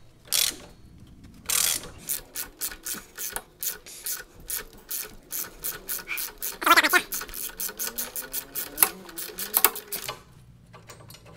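Socket ratchet clicking as a loosened 5/16 bolt is backed out of the footpeg bracket, at first a few clicks and then about four a second, with a louder metallic scrape about seven seconds in. The clicking stops shortly before the end.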